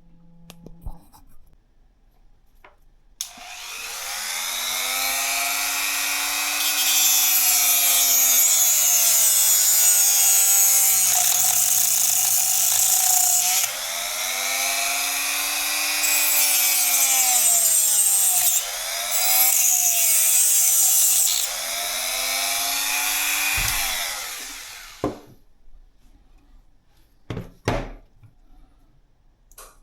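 A small high-speed electric motor starts about three seconds in and runs for some twenty seconds, its pitch rising and falling in slow swells as the load changes. It stops near the end, followed by a few sharp clicks.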